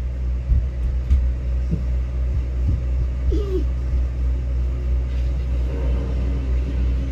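Small asphalt finisher's diesel engine running steadily with a low rumbling hum, with a few light knocks from the machine and tools in the first few seconds.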